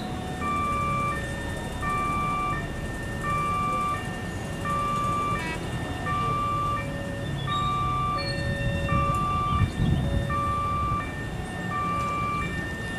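Railway level crossing warning alarm: two electronic tones alternating over and over, with a train's low rumble underneath. A brief louder burst comes about ten seconds in.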